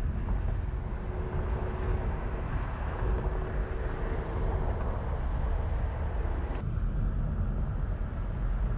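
Steady rush of wind buffeting the microphone, with engine and road rumble, in an open-top convertible on the move. A faint steady hum shows in the first few seconds, and a sharp click comes about six and a half seconds in.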